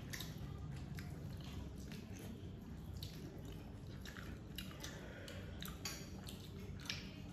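People eating with their hands: fingers mixing chicken biryani on plates, along with chewing, giving scattered small clicks throughout.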